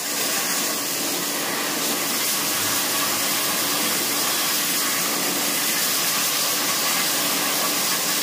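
Steady hiss of a high-pressure jet-pump water spray washing the cooling coil of a split AC indoor unit, the water spattering into a plastic service bag.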